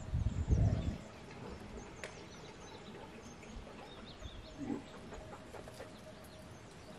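Domestic chickens clucking softly, with faint small-bird chirps. A short low rumble fills the first second.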